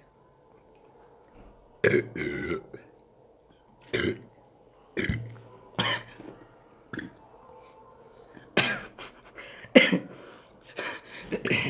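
Men belching repeatedly after gulping carbonated Coca-Cola: a series of short, separate burps, about eight in all, with gaps of quiet between them.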